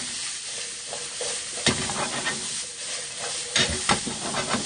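Sliced onions and mushrooms sizzling in oil in a frying pan while a spatula stirs and scrapes them around, with a few sharper scrapes about a second and a half in and again near the end.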